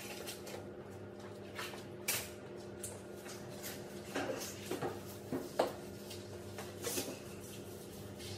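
Floor mopping: a wet mop worked over a hard floor, with a few short knocks and scrapes from the mop and its handle, the loudest about two seconds in and again about five and a half seconds in. A steady low hum runs underneath.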